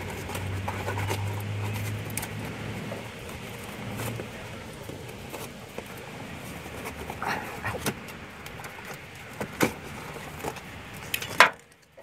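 Handling noise from hands and a phone held close under a truck: rustles, light clicks and knocks. A low hum runs through the first two seconds or so, and a sharp knock comes near the end.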